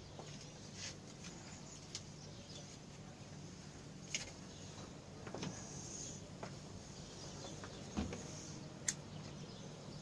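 Faint background ambience with scattered light clicks and knocks; a sharper knock comes about eight seconds in and a crisp click just before nine seconds.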